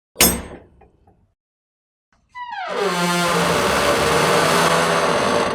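Rusted steel shipping container door: a single metal clank that rings out for about a second, then, about two seconds later, a long squealing screech of rusty metal that slides down in pitch before holding steady and cuts off at the end.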